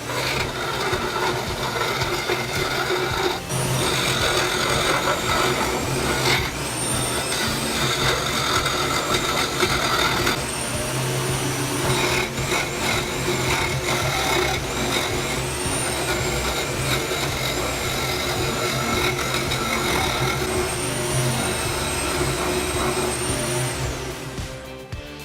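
Electric drill driving a homemade sanding attachment under load, with a high motor whine that rises and falls in pitch as the load changes, over steady grinding noise.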